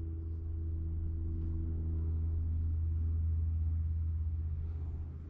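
A steady low engine hum with a few even overtones, easing off and fading away near the end.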